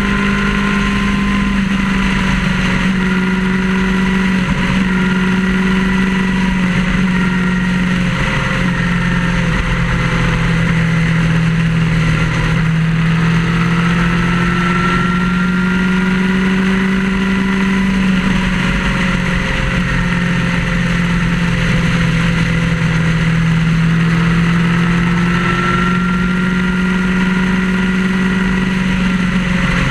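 Vehicle engine running at steady motorway cruising speed, a droning note that dips and rises slightly a few times, over constant road and wind noise.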